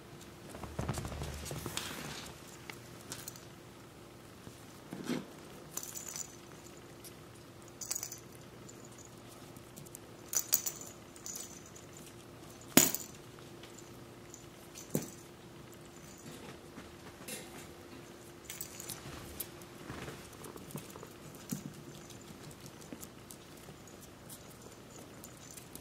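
Mal-Shi (Maltese × Shih Tzu) puppies scampering on a hard plank floor: scattered light clicks and taps of claws and paws, with one sharper click a little past halfway, over a faint steady hum.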